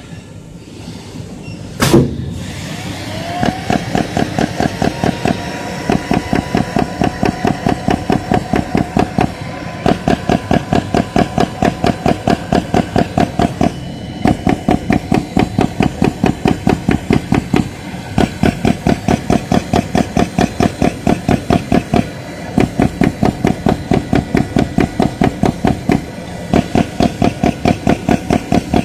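AOKE CNC flatbed cutter's perforating tool head punching rapidly, about five strokes a second, in runs with short pauses as it moves between cuts, over a steady machine hum. A single sharp knock sounds about two seconds in.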